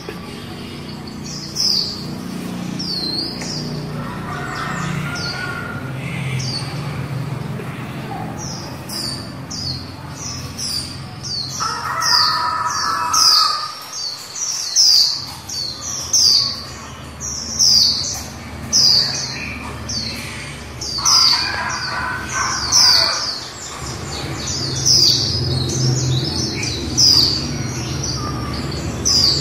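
Female white-eye (vành khuyên) calling: a series of short, high notes that each fall in pitch, coming about one or two a second and growing denser after about ten seconds. This is the kind of female call that keepers use to stir male white-eyes into song. A steady low hum lies underneath.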